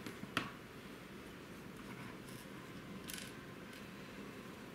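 Small hard parts being handled during hand assembly: a sharp click about half a second in, then a brief scrape or rustle around three seconds in, over a faint steady hiss.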